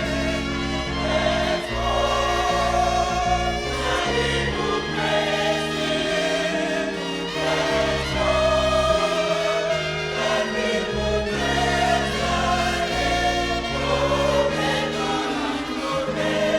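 Choral gospel music: a choir singing held chords over an instrumental backing.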